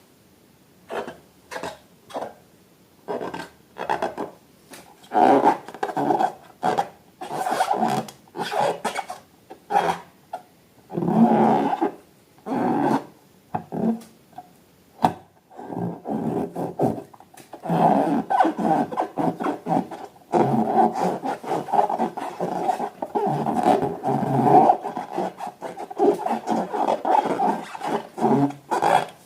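Repeated rubbing and squishing strokes of slime and rubber balloons being handled and squeezed. The strokes come in short irregular bursts, sparse at first, then quick and nearly continuous over the second half.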